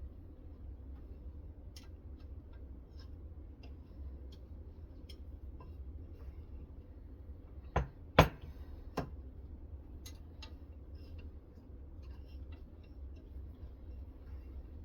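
Scattered light clicks and taps of hard parts being handled on a guided knife-sharpening system, with three sharp clacks about halfway through, over a steady low hum.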